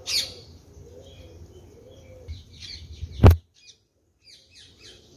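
Small birds chirping in quick short notes, with one sharp knock a little over three seconds in.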